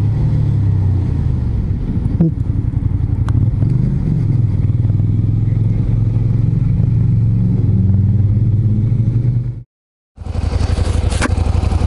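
Suzuki Gladius 400 V-twin motorcycle engine running at low road speed, its note rising and falling a little with the throttle. The sound cuts off abruptly for about half a second near the end, then the engine comes back at a steady idle.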